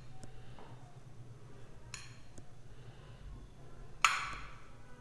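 Stainless steel dishware clinking as curd is poured from a steel bowl onto a steel plate: a light clink about two seconds in and a louder clink with a short ring about four seconds in.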